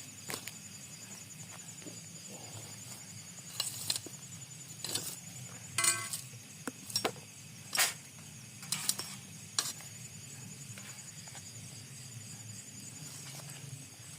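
Cutlery and dishes clinking as food is served: a handful of scattered sharp clinks and knocks, one ringing briefly about six seconds in. Behind them runs a steady high insect trill.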